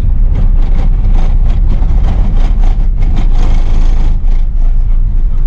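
A moving road vehicle: a heavy, steady low engine and road rumble with many short knocks and rattles over it.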